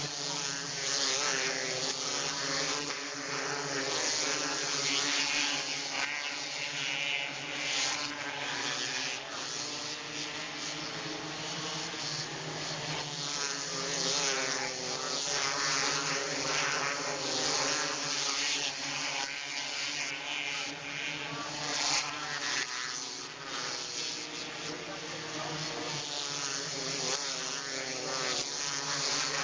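The engines of a field of 270 micro sprint race cars running at racing speed around a dirt oval: a continuous engine drone whose pitch wavers as the cars go round, over a steady hiss.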